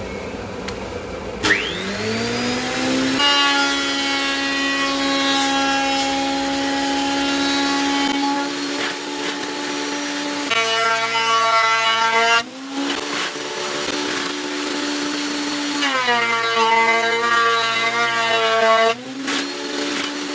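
Thickness planer motor spinning up with a rising whine about a second and a half in, then running steadily. Twice the pitch sags and the sound thickens as fir boards are fed through the cutterhead and planed to thickness.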